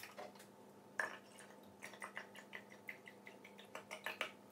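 Milk poured from a carton into a glass, a faint liquid sound in short, even pulses about five a second, after a click about a second in as the carton is opened.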